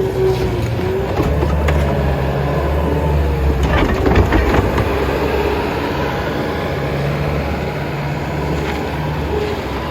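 Bobcat skid steer working: its engine runs steadily with a whining tone that rises and falls. A cluster of clanks and knocks comes about four seconds in, as the machine works through debris.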